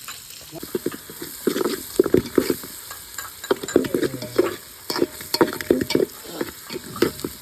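A ladle stirring and scraping in a pan of food frying in hot oil. Irregular scrapes and knocks, a few each second, sound over a steady sizzle.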